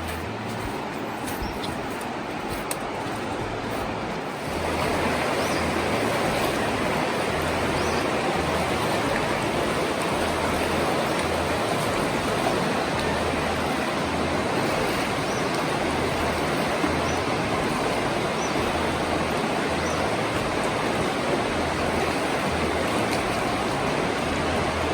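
Virgin River water rushing: a steady flowing-water noise that grows louder about four and a half seconds in and then holds.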